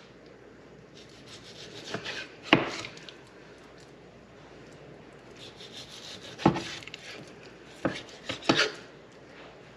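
A sharp kitchen knife slicing through a raw pork loin, with about five sharp knocks as the blade comes down on the cutting board.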